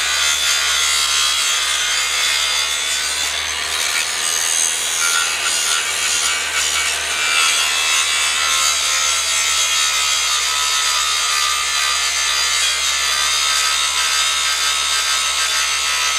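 Makita angle grinder running under load, its disc grinding into a steel plate clamped in a vise, a steady, continuous metal-grinding noise over the motor's hum.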